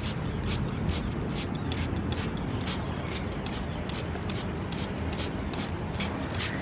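Hand trigger spray bottle squeezed over and over, giving a steady run of short hissing sprays at about two or three a second, misting liquid fertilizer onto mango leaves.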